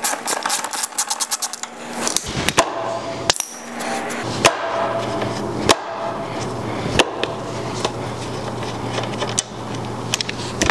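Ratchet wrench clicking rapidly for about two seconds on the motorcycle's front axle hardware. After that come a few scattered metal clicks and taps over a steady low hum.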